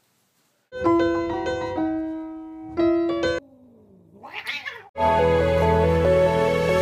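A few keyboard notes are played, then a cat gives one drawn-out meow that dips and rises in pitch. About five seconds in, music begins.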